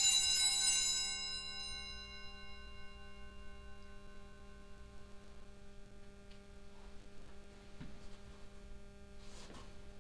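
Altar bell rung at the elevation of the host, marking the consecration; it rings out and dies away over the first couple of seconds, leaving a faint steady hum.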